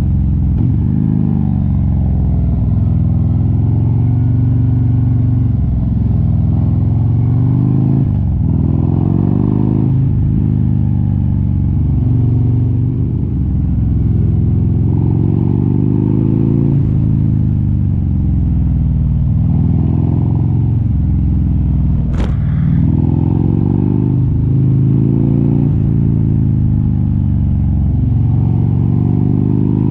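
Harley-Davidson V-twin motorcycle engine heard from the bike itself while riding, its note rising and falling again and again as the rider accelerates and eases off. A single sharp click comes about two-thirds of the way through.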